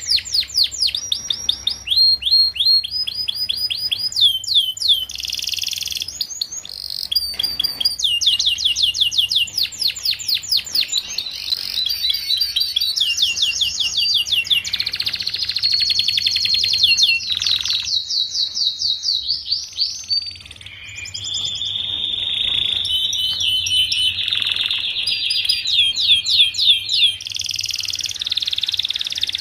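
Domestic canary singing a long, unbroken song of fast trills, each phrase a run of quick repeated notes before it switches to a new phrase every second or two.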